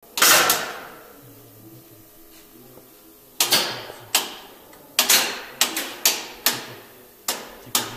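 Switching apparatus of a VL80r electric locomotive training stand clacking as it operates: about a dozen sharp, loud clacks, the loudest a double one at the start and the rest in irregular clusters, each trailing off briefly, over a faint low hum.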